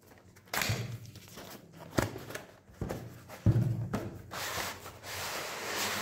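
A cardboard keyboard box being opened and handled: a few sharp knocks and scrapes, then rustling and sliding of the packaging near the end.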